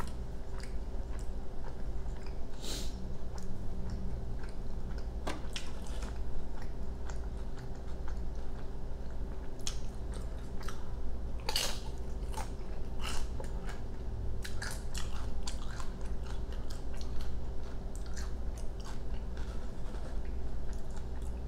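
A person chewing close to the microphone, with crisp crunches at irregular intervals from biting tortilla chips, over a steady low hum.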